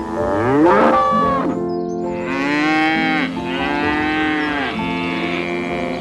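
Bison lowing in a series of long, drawn-out calls that rise and fall in pitch, over steady background music.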